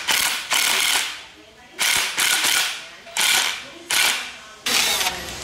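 Cordless DeWalt impact wrench driving a lug stud installer tool, pulling a wheel stud into the axle flange, in about five short bursts of under a second each with brief pauses between.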